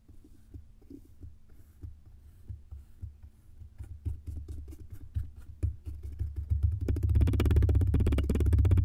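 Wooden tamper pressing down repeatedly into kinetic sand: a string of soft, low thuds, with the sand packing and crumbling under it. In the last two seconds it turns into a fast, louder run of close taps.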